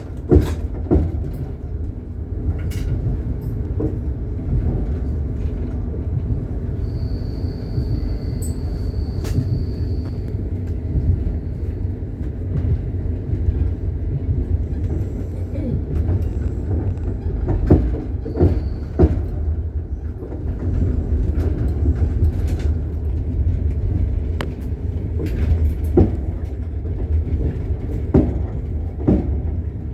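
Train wheels clacking over rail joints heard from aboard a moving train, over a steady low running rumble. A thin high steady tone sounds for about three seconds a third of the way in.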